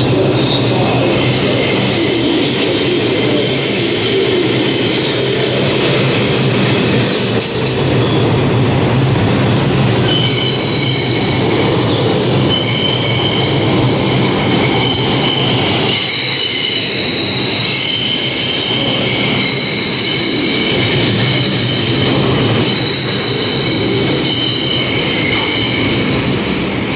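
New York City subway R142 train pulling out of the station and running past at close range, its motors and wheels giving a steady low rumble. From about ten seconds in, the steel wheels squeal in several high-pitched, overlapping tones as the cars take the curved station track.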